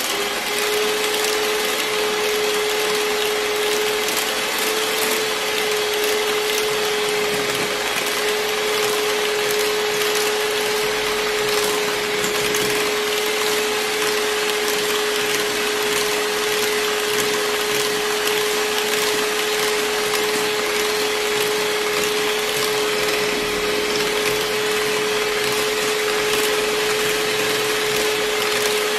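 Electric hand mixer running at a steady speed, its beaters whipping a cream-based ice cream mix in a glass bowl into a foam. A steady motor hum and whir holds one pitch throughout.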